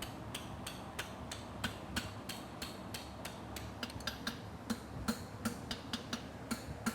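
Hammer tapping a hot steel horseshoe on an anvil: quick, light blows, about four a second, flattening the tip of the heel wedge on a concave hunter hind shoe.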